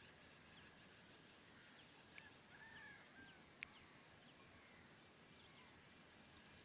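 Near silence: faint background noise with a short, rapid trill of about ten pulses a second near the start, a few faint chirps in the middle, and two faint ticks.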